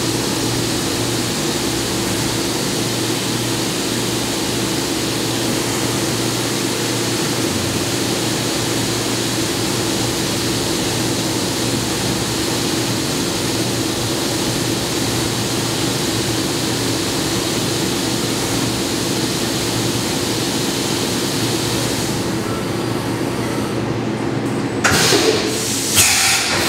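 CNC vertical milling machine drilling a breech plug with a 0.272-inch I drill under flood coolant: a steady hiss of coolant spray over the hum of the running spindle. About 22 seconds in, the coolant hiss stops, and near the end a few sharp clunks come as the machine moves to its tool change.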